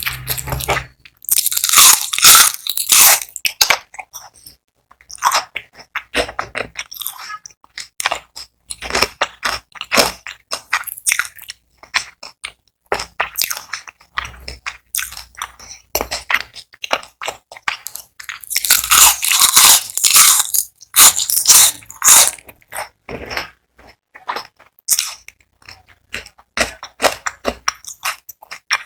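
Close-up crunching of crispy fried onion rings being bitten and chewed: two loud bursts of crunchy bites, about two seconds in and again around twenty seconds in, with quieter chewing crackles between.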